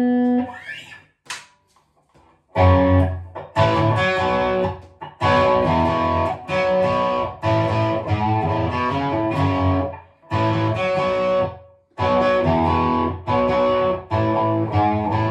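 1989 Hohner Arbor Series single-cut electric guitar played through an amp with heavy high-gain distortion. A held chord dies away, and after a short pause a riff of short, chopped chord stabs starts, breaking off briefly twice.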